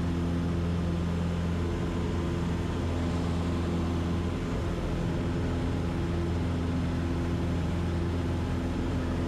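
Cessna 150's four-cylinder Continental O-200 engine and propeller running steadily at climb power, heard from inside the cabin as an even drone with a low engine hum.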